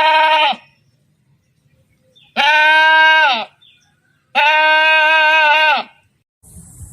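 Three bleats from a farm animal, each a steady, pitched call lasting about half a second to a second and a half, with short pauses between them. A noisier sound starts near the end.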